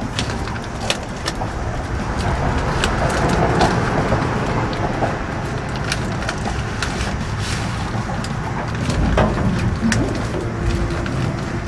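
Reflective foil tape crinkling and rustling as it is pulled through behind a van's wall panel, with many small crackles.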